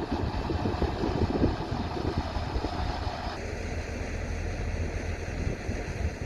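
Heavy construction machine's diesel engine running, with wind buffeting the microphone; the sound shifts abruptly about three seconds in.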